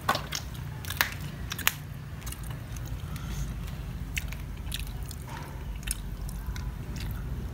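A person chewing and biting grilled catfish close to the microphone, with sharp clicks and crunches that are loudest in the first two seconds.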